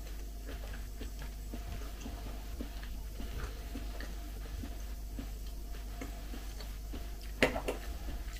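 Quiet chewing and small clicks of a person eating meat with a fork. About seven seconds in, a sharp clink of the fork on the plate is the loudest sound, followed by a smaller one.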